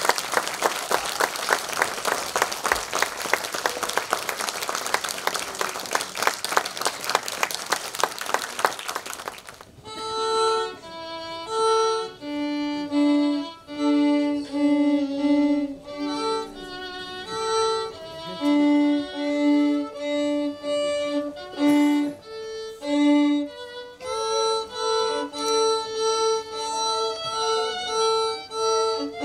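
Audience applause for about the first ten seconds. Then two violins start a duet, playing distinct bowed notes in two parts.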